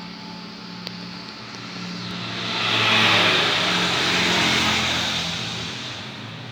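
A vehicle passing by, its noise swelling for about a second and a half and fading away over the next few seconds, over a steady low hum.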